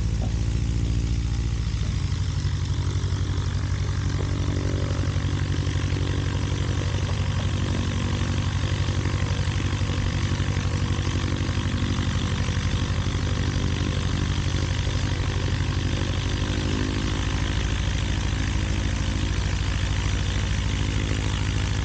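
Rotax 912iS four-cylinder engine and propeller of a EuroFOX light aircraft running steadily.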